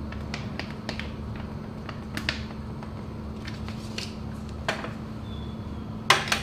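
Noodle broth simmering in a steel wok over a gas burner: scattered small pops and ticks over a steady low hum, with two sharper clicks near the end.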